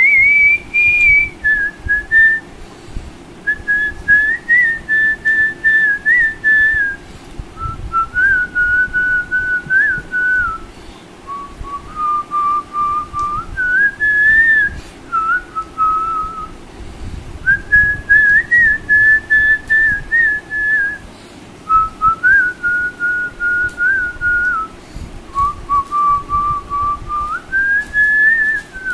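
A man whistling a slow Hindi film-song melody through pursed lips: a single clear tone stepping up and down in phrases of a few seconds, with short breaks between them.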